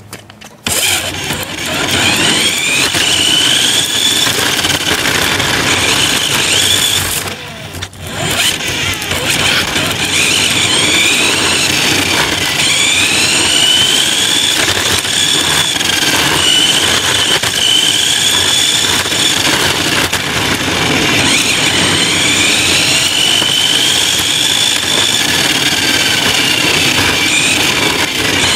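Radio-controlled truck's motor and gears whining close up, the whine rising in pitch as the truck speeds up and falling as it slows, again and again, over the noise of its tyres rolling on pavement. The sound drops away briefly about eight seconds in.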